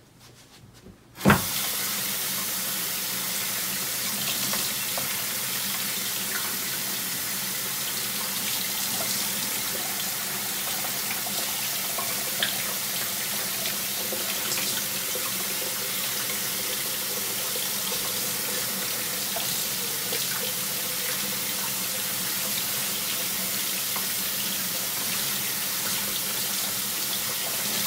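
A kitchen faucet running steadily, rinsing a Keurig charcoal water filter pod under the stream. The water starts about a second in, with a sharp knock just as it begins.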